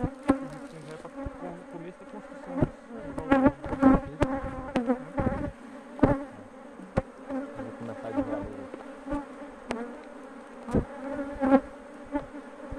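Honeybees buzzing steadily around an opened hive box, with a dozen or so sharp clicks and knocks of a metal hive tool and frame grip working a wooden frame loose and lifting it out.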